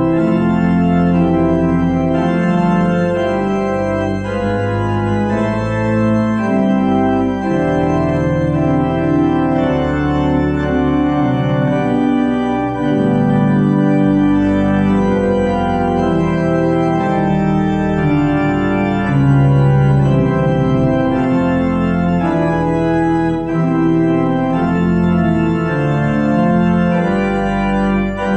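Organ postlude at the close of a church service: full held chords moving steadily from one to the next over deep bass notes.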